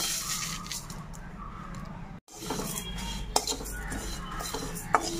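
Whole spices (fennel seeds, cumin, panch phoron and dried red chillies) poured into a dry metal wok with a rustling patter, then stirred and scraped around with a metal spatula as they dry-roast, with a few sharp clicks of the spatula on the pan. The sound breaks off briefly about two seconds in.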